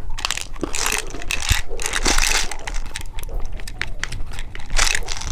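Close-miked crunching and crackling around crispy-coated bean candy, a quick irregular run of sharp crackles.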